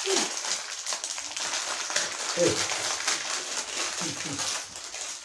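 Food sizzling and crackling in a hot pan on the hearth as it is stirred with a spatula; the sizzle eases off near the end.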